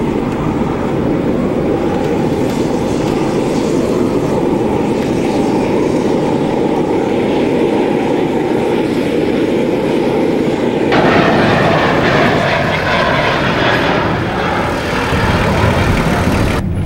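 Loud, steady machine noise of an airport apron with engines running. About eleven seconds in it changes suddenly to a brighter, hissier noise.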